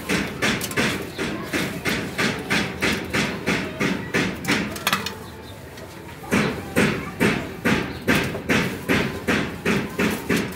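A cloth scrubbing a soapy gas stove top in quick back-and-forth strokes, about three a second, with a pause of about a second midway before the strokes resume.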